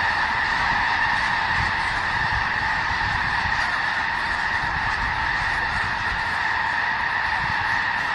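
A large flock of birds calling all at once, their calls merging into a dense, steady din.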